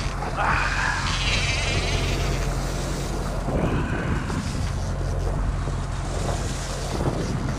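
Fishing boat's engine running steadily at sea, with a few brief higher-pitched wavering sounds over it, about half a second in and again about three and a half seconds in.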